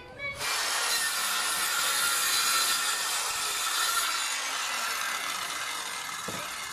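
Circular saw cutting through wood, starting about half a second in and running steadily, then growing gradually quieter in the second half.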